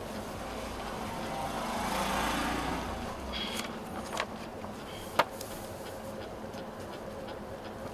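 A motor vehicle passes by, its rumble swelling and fading over about three seconds, over a steady low hum. A few sharp clicks follow, the loudest about five seconds in.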